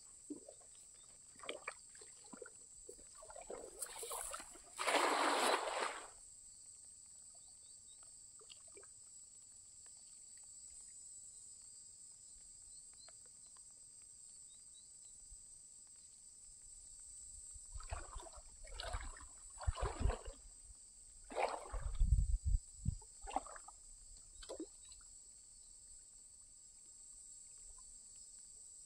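A cast net thrown into shallow lake water, landing with a splash about five seconds in. Later comes a cluster of water sloshes and drips as the net is hauled back in while wading. Crickets chirr steadily throughout.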